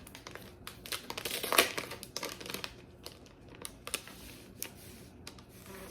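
Crinkling and rustling of comic book packaging being handled, densest and loudest about one and a half seconds in, then thinning to a few light clicks and taps.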